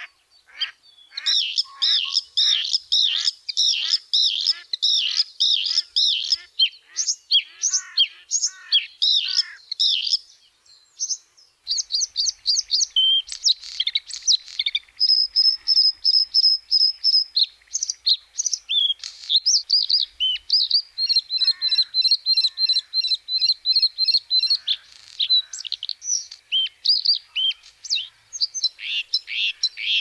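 White-spotted bluethroat singing: long runs of quick repeated high notes, with a short break about eleven seconds in, then a more varied song holding a high whistle for about a second and later a fast trill.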